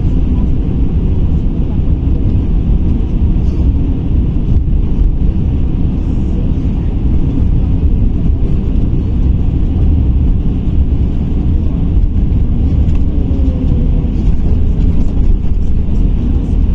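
Steady low rumble of road and tyre noise inside the cabin of a KamAZ-6282 electric bus driving along at speed.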